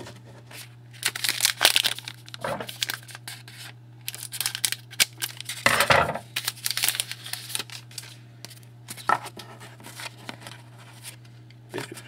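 Foil trading-card pack wrappers being torn open and crinkled, with cards rustling and clicking as they are handled, in irregular clusters. A steady low electrical hum runs underneath.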